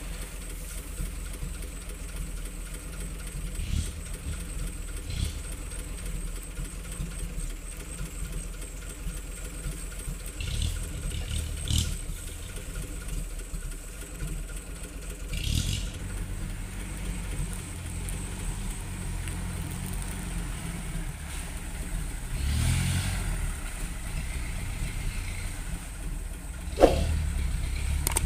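Engine of a hardtop 4x4 pickup laden with oil palm fruit bunches, running at low revs as it crawls through tall grass. A few short knocks and rattles break in, with one sharp knock near the end.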